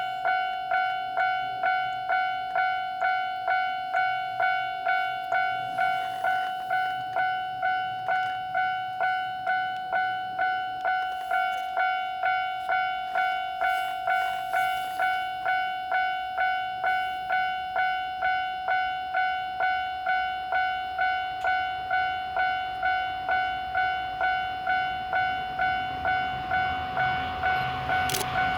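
Railway level-crossing warning bell ringing in an even, repeating ding, just under two strikes a second. In the last few seconds a JR 415-series electric train's running noise rises under it as the train draws close, with one sharp click just before the end.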